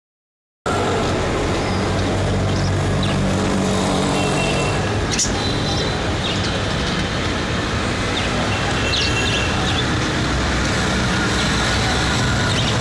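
Steady background din with a low hum, starting about half a second in, with a few faint short high squeaks and a single click over it.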